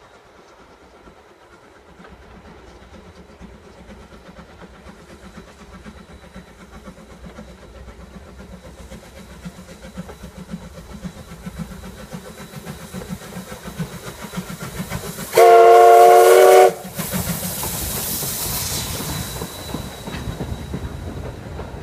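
JNR Class C10 steam tank locomotive No. 8 approaching, its running noise growing steadily louder. About fifteen seconds in it sounds one steady steam whistle blast of a little over a second, the loudest sound here, and a loud rush of noise follows as it comes by.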